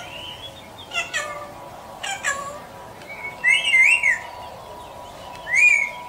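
Parrot calling: a few short, sharp squawks, then a longer warbling, whistled call about three and a half seconds in, and another squawk near the end.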